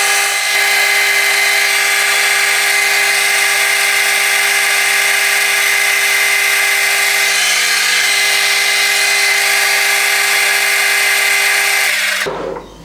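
Metal lathe parting off a turned metal part with a parting tool: a loud, steady cutting noise made of several held tones over the motor's hum. It stops suddenly about twelve seconds in as the part comes free.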